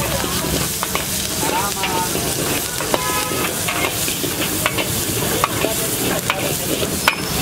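Chopped onions sizzling in oil in a large black wok as they are stir-fried, with a metal ladle scraping and clacking against the wok several times.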